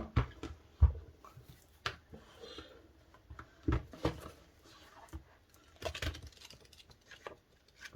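DVD packaging being handled and opened by hand: scattered light clicks, taps and knocks at irregular intervals.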